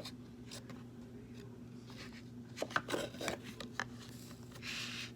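Handling of a small paper book between read passages: a few light clicks and taps, then a brief paper rustle near the end as a page turns, over a steady low electrical hum.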